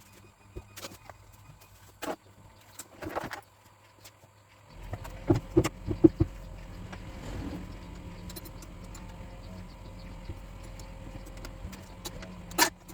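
Metal clicks and clinks of a car battery being put in place and its terminals connected. About five seconds in, a steady low hum starts, with a few sharper clicks just after it.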